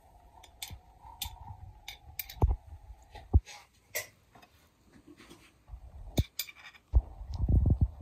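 Metal fork clicking and tapping against a ceramic plate while jalapeño slices are placed on fried chicken burger patties. There are scattered small clicks and a few sharper knocks, and a run of dull low thuds near the end.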